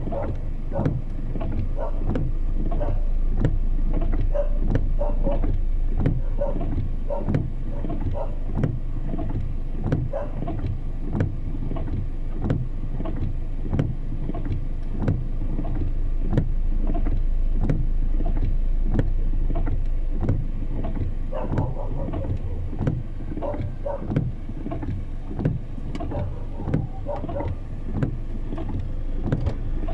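A vehicle moving along a road in the rain: a steady low rumble of engine and road noise, with frequent irregular sharp taps.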